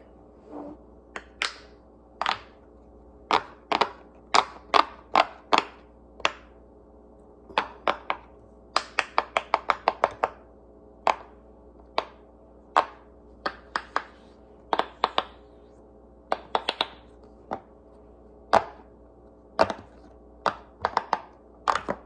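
Bubbles of a giant silicone dinosaur pop-it fidget toy being pushed through by fingers: a string of sharp pops, irregular, with quick runs of several a second around the middle.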